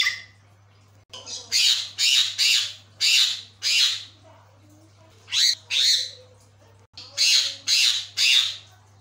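Javan myna (jalak kebo) calling in loud, harsh squawks, in three bursts: about six notes from a second to four seconds in, two more a little past five seconds, and three or four near the end.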